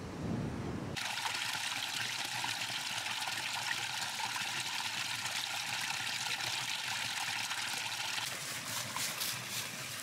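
Wind rumbling on the microphone for about a second, then a small stream of water trickling and splashing steadily down a mossy rock ledge. Near the end the splashing turns uneven.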